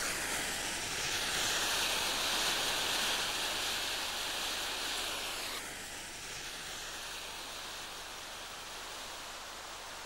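Steady background hiss with no distinct events, from old VHS tape noise and outdoor air. A brighter hiss in the first half stops abruptly a little past halfway, leaving a fainter, even hiss.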